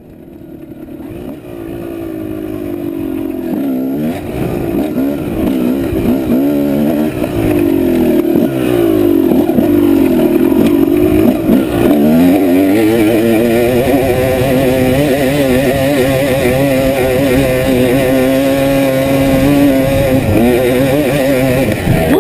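Honda CR250 two-stroke dirt bike engine revving under load on a steep hill climb. It fades in over the first few seconds, its pitch swings up and down repeatedly with the throttle, then it holds a steadier, higher run in the second half.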